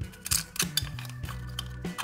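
Scissors making several sharp snips as they cut through a thin aluminium drink can, over background music.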